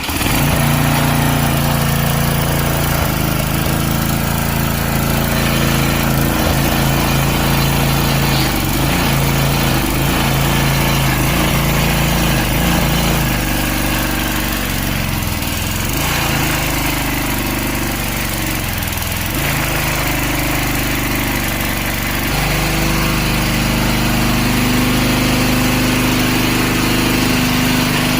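Small gas pressure washer engine running steadily, its note dipping briefly twice in the middle and settling at a slightly different pitch a little over halfway through.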